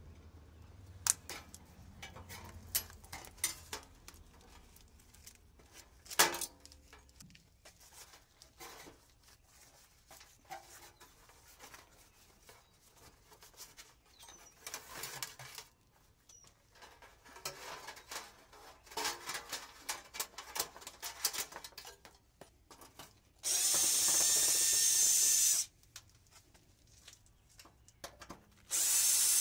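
Scattered clicks and rustles of wires and sheet metal being handled, then near the end a cordless drill runs twice, about two seconds each time, backing screws out of an air-conditioner's sheet-metal cabinet.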